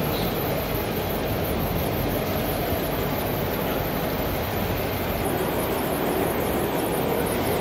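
Steady, even background din of a busy exhibition hall, with no single sound standing out.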